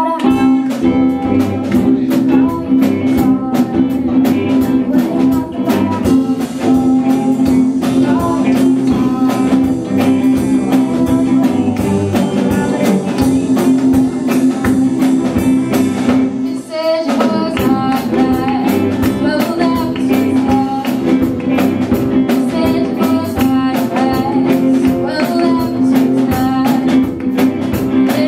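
Live rock band playing: electric guitars, bass guitar and drum kit, with a woman singing. The band stops briefly about seventeen seconds in, then carries on.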